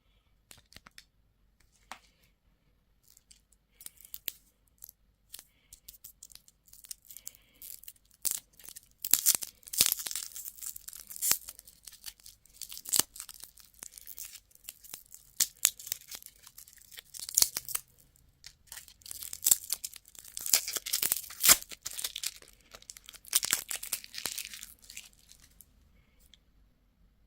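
Candy wrappers being torn open and crinkled by hand. Scattered crackles and clicks come first, then dense tearing and rustling from about eight seconds in, stopping a little before the end.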